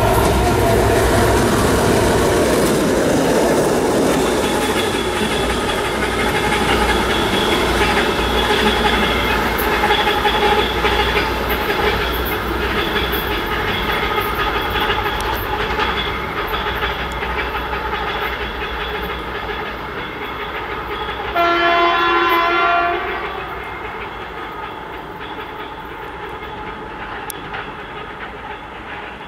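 Two-section 2M62U diesel locomotive running light past and away: its two-stroke diesel engines run with wheels clattering over the rail joints, and the sound fades as it recedes. About two-thirds of the way through, a locomotive horn sounds once for about a second and a half.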